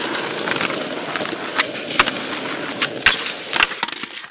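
Skateboard wheels rolling over rough asphalt, a steady rumble, with sharp clacks of the board about two, three and three and a half seconds in.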